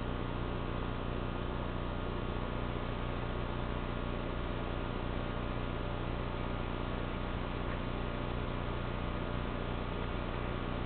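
Steady hiss with a low, even hum underneath and no distinct events.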